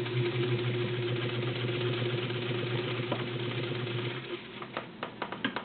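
Morse 99K-clone straight-stitch sewing machine with its 1.2-amp motor running steadily, stitching through layers of 4-ounce leather. It stops about four seconds in, followed by a few light clicks.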